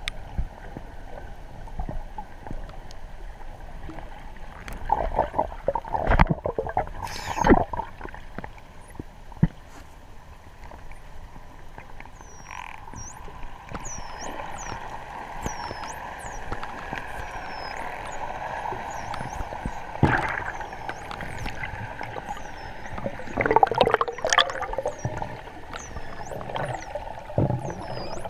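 Wild dolphins heard underwater: many short whistles sweeping down and back up in pitch, coming thick and fast through the second half, over a constant wash of water noise. Several louder rushes of water and bubbles break in now and then.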